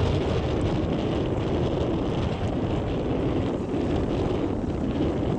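Wind blowing across the microphone: a steady low rumbling noise with no let-up.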